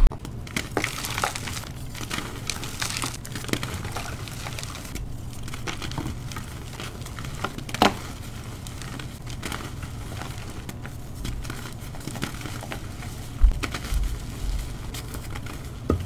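Hands crushing and squeezing blocks of dyed gym chalk: a continuous crumbling, crackling crunch as the chalk breaks into powder. A few sharper cracks stand out as chunks snap.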